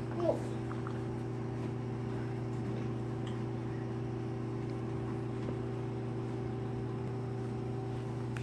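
Steady low hum of a running machine, holding one unchanging pitch throughout.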